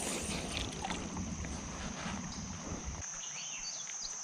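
Creek water splashing and sloshing around a wading angler, dying away about three seconds in. A steady high hiss runs underneath, and a few short chirps come near the end.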